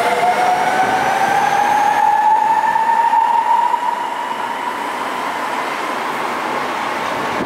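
Rubber-tyred Sapporo Namboku Line 5000-series subway train departing, its traction motors whining in a rising pitch as it accelerates over a steady rushing noise. The whine levels off and the sound drops slightly about four seconds in as the train moves off along the platform.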